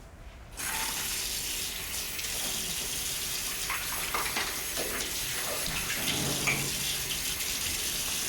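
A water tap is turned on about half a second in and runs steadily into a sink, with a few light knocks over it.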